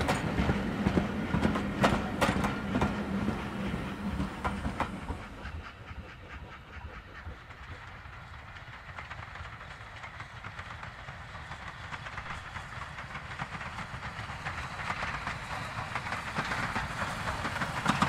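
Railway coaches rolling past close by, wheels clicking over rail joints. After a drop in level about five seconds in, ex-LSWR T9 steam locomotive 30120 and its train come nearer with a steady rumble that grows louder to the end.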